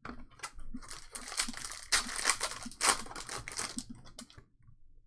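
Plastic trading-card pack wrapper crinkling as it is torn open and crumpled, a dense crackle that dies away about four seconds in.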